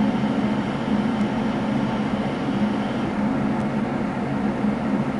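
Steady, unchanging low mechanical hum with a hiss over it, like a motor or fan running.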